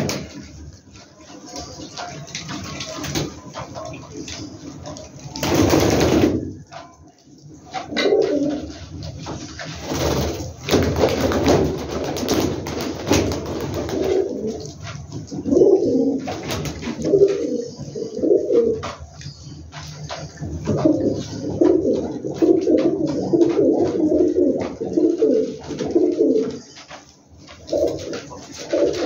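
A flock of domestic pigeons cooing, many calls overlapping and repeating, with a brief loud rustle about six seconds in.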